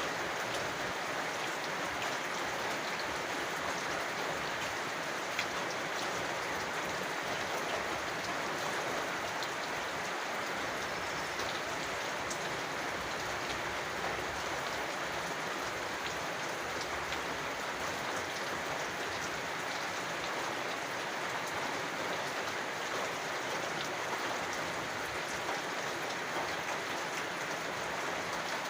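Steady rain falling, an even hiss with many small drops ticking throughout.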